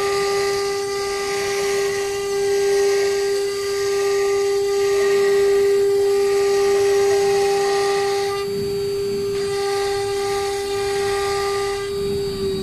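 Water-cooled 3 kW spindle of a CNC wood router engraving a wooden board: a steady high whine with the hiss of the bit cutting. The hiss fades for about a second past the middle and again near the end, while the whine runs on.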